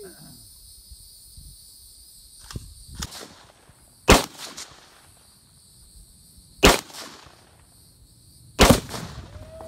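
Two rifle shots about two and a half seconds apart, then a third loud bang about two seconds later as a half-pound Tannerite exploding target detonates, with a longer rumbling tail than the shots. Two fainter cracks come before the first loud shot.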